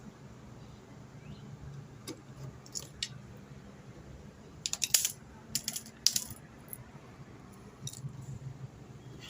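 Small metal objects clinking and rattling in short, irregular clusters, loudest about five and six seconds in, over a faint steady low hum.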